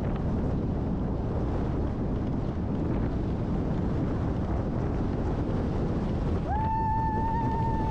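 Wind buffeting the camera microphone on a moving scooter, a steady low rumble. About six and a half seconds in, a steady high-pitched tone starts with a quick upward slide and holds for about two seconds.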